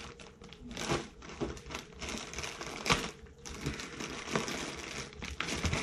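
White plastic poly mailer bag crinkling as it is handled and torn open by hand: an irregular run of rustles and crackles, the sharpest about three seconds in.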